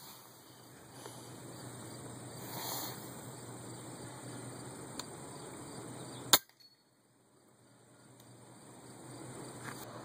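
Faint rural outdoor background with a steady low hum and insects. About six seconds in, a single sharp crack, after which the sound cuts out abruptly and slowly returns.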